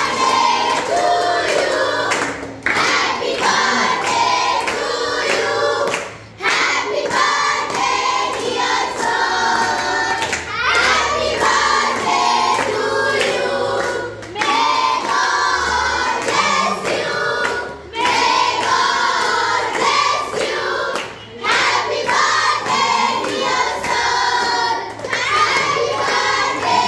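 A group of girls and children singing together loudly in chorus, clapping their hands in time.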